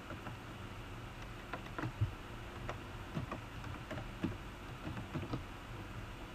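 Computer keyboard typing: irregular, light keystroke clicks, a few a second, with short pauses between runs of keys.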